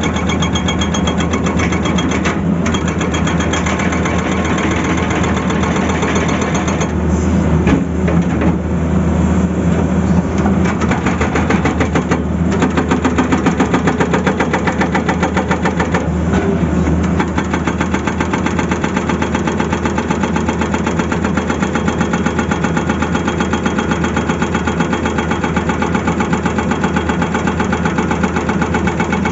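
Tata Hitachi excavator's diesel engine running steadily with an even pulse, rising somewhat for a few seconds in the middle.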